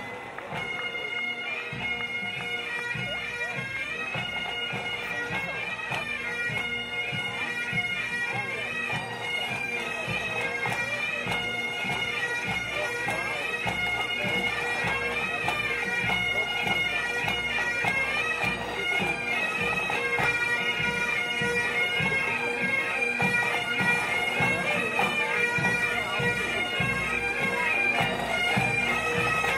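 A marching pipe band: several Highland bagpipes play a tune over their steady drones, with drums beating beneath. It grows gradually louder as the band comes closer.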